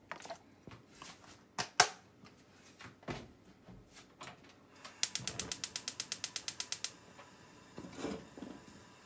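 A few knocks and clicks from a plastic bottle being handled and set down, the loudest a sharp knock about two seconds in. Then a gas stove's igniter clicking rapidly, about nine clicks a second for two seconds, as the burner under the pan is lit.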